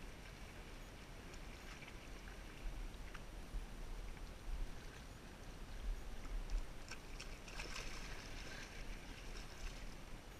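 Faint sea water lapping against shore rocks, with wind rumbling on the microphone. A brief splashy hiss comes about three quarters of the way through, as the fish is let back into the water.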